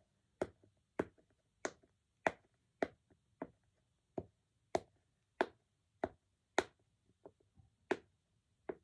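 Bubbles of a pop fidget ball being pushed in one after another with the fingers, each giving a short sharp pop, about one every half second or so.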